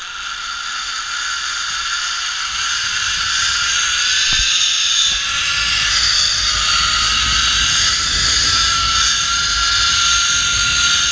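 Zipline trolley running along the steel cable: a steady high-pitched whirring whine over a rushing hiss, with a low rumble of wind. It grows louder over the first few seconds and then holds steady.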